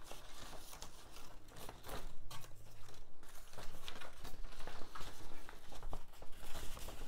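Sheets of drawing paper rustling and crinkling as they are handled and shifted about to fit a paper template, in irregular bursts.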